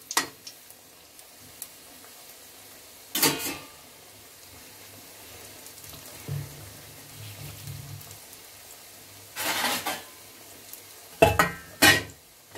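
Small lentil vadai deep-frying in hot oil in a kadai, a faint steady sizzle, while a perforated metal ladle turns them. The ladle scrapes and clatters against the pan a few times: once about three seconds in, again around nine to ten seconds, and in two sharp knocks near the end.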